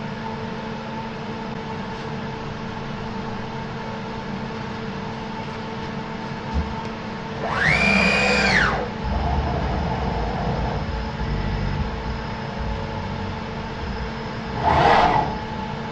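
CNC milling machine's axis drives during an automatic tool-measuring cycle: a steady machine hum throughout. About halfway through, a rapid traverse whines for about a second, rising in pitch, holding, then falling. A shorter burst of motor noise comes near the end.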